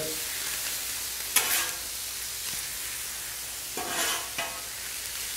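Diced Spam sizzling in oil on a Blackstone flat-top steel griddle, with a metal spatula scraping across the griddle to stir it, once about a second and a half in and again near four seconds.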